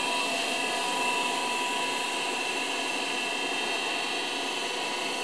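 A 10-litre vacuum emulsifying mixer machine running: a steady hiss with a high whine.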